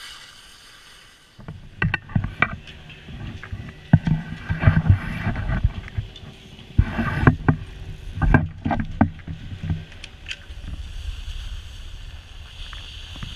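Clattering knocks and clacks over a steady mechanical hum at a ski gondola station. After that, steady wind noise on the microphone.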